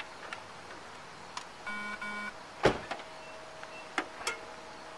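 Two short electronic beeps in quick succession, then a single loud thump, with a few lighter clicks and knocks before and after.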